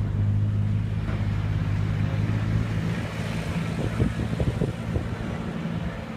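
Steady low engine hum, with a few short knocks about four to five seconds in.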